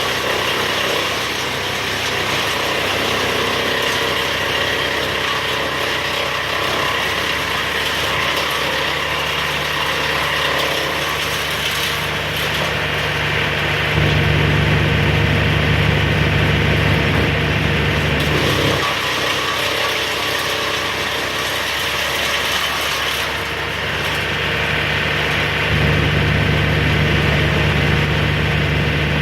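An engine-driven machine running steadily with a mechanical clatter. Its low engine note grows louder about halfway through and again near the end.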